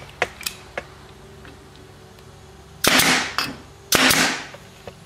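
Staple gun firing twice, about a second apart, driving staples through a plywood strip into the board, each sharp shot followed by a short hiss. A few light clicks come in the first second.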